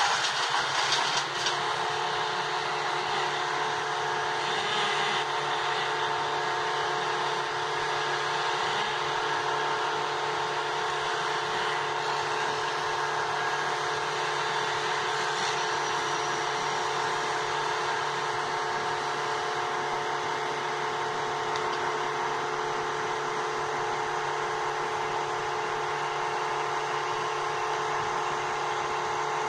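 Engine of a 70-ton mobile crane running steadily under load as the crane makes a lift: a constant drone with several held tones that does not change.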